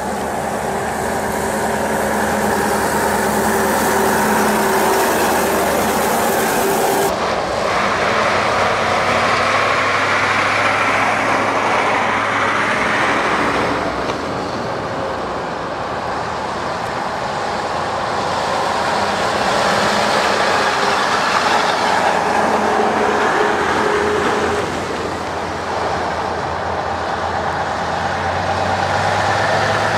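Convoy of Ural army trucks driving past, their diesel engines running steadily over tyre noise on a wet road. The sound changes abruptly at several edit cuts, most sharply about seven seconds in.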